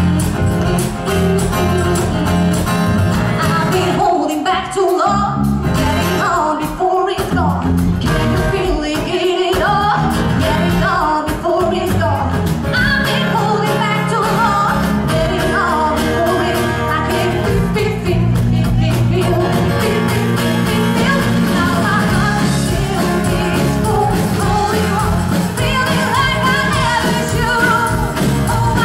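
Live rock cover band playing: a woman sings lead into a microphone over electric guitar, bass and drums. About four to ten seconds in, the bass and drums drop out briefly a few times before the full band plays on.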